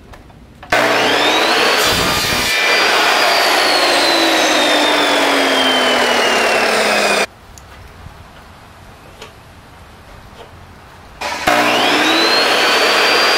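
Ryobi sliding compound miter saw cutting thin white trim strips. The motor starts with a rising whine, gives a brief rasp as the blade goes through the strip about two seconds in, then whines on at a slowly falling pitch until it cuts off about seven seconds in. The saw starts up again with the same rising whine near the end.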